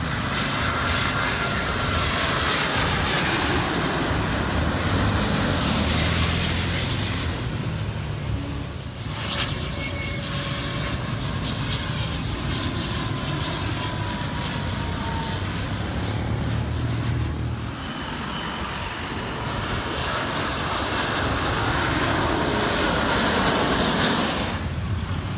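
Jet airliner engines as the aircraft pass low overhead: a loud, steady rushing roar with a faint high whine, changing abruptly about nine seconds in.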